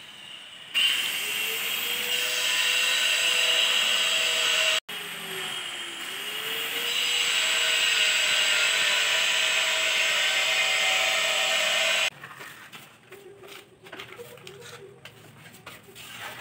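An electric power tool, of the kind used to cut or grind stone and tile, runs at high speed. Its whine winds up about a second in, sags briefly about six seconds in as if under load and then picks back up. It stops abruptly about twelve seconds in, leaving quieter, irregular work noise.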